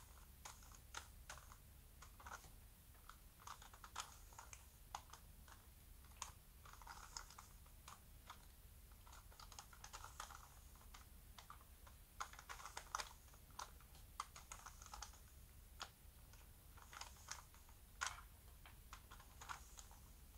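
Quiet, irregular runs of plastic clicks from the layers of a 3x3 Rubik's cube being turned by hand, one twist after another.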